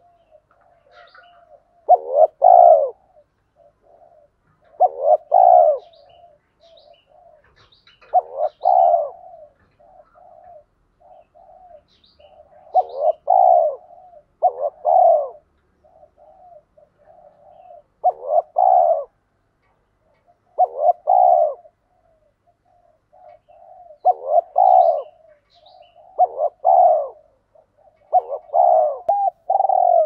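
Spotted dove cooing over and over: a loud coo phrase every two to three seconds, some in close pairs, with soft short coos in between, the excited repeated cooing that keepers use to draw wild doves.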